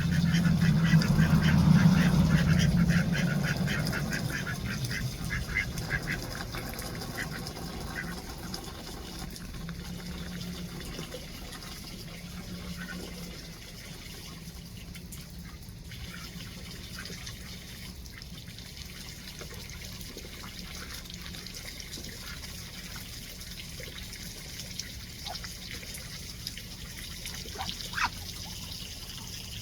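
Ducks quacking and splashing in water, loudest and busiest in the first few seconds. After that comes a quieter steady sound of water with an occasional call.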